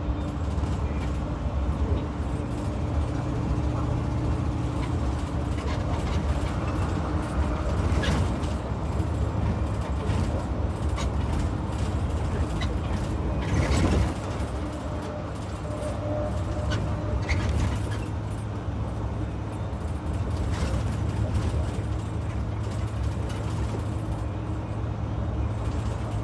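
Gasoline engine of a 2022 IC CE school bus running steadily, with an exhaust leak from a faulty catalytic converter. A few sharp knocks and rattles break through, the loudest about halfway through.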